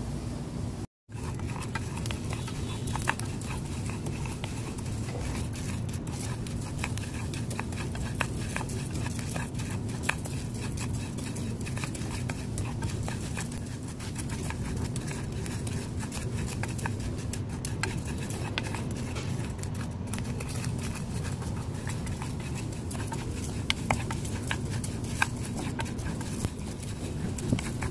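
Close-miked chewing and crunching of dry roasted rice, a steady grinding noise with scattered sharp cracks.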